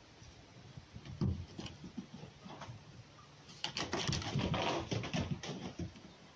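A red fox scrambling and pouncing after a tennis ball on a dirt floor: a single knock about a second in, scattered scuffs, then about two seconds of dense scuffling and knocking from the middle on.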